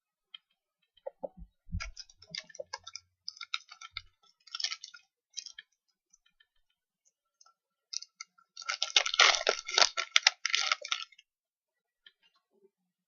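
Plastic foil wrapper of a basketball trading-card pack crinkling in the hands, with cards being handled: scattered crinkles and clicks with a couple of soft thumps, then a dense burst of crinkling for about two seconds near the end as the pack is torn open.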